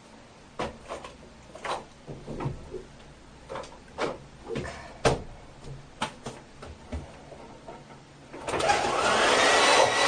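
A few small knocks and clicks of handling, then, about eight and a half seconds in, a hair dryer switches on and runs loudly with a steady rush of air and a whine that rises as its motor spins up.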